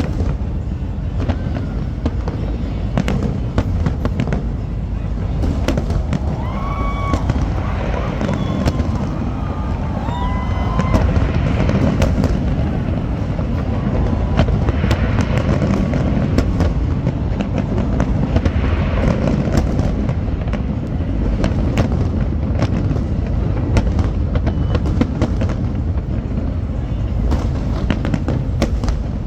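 Fireworks display: rapid bangs and crackling over a continuous deep rumble.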